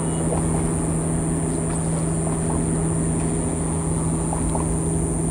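Steady mechanical hum, a low drone with a faint high whine above it, holding unchanged throughout.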